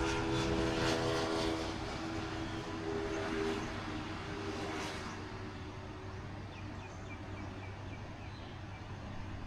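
A motor vehicle passes, its engine tone dropping in pitch and fading over the first half, over a steady background hiss. Near the end comes a string of about eight short high chirps.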